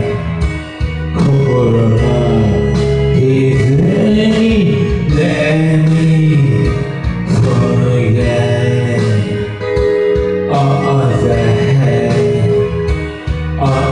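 A man singing karaoke through a microphone over a recorded backing track, holding long notes.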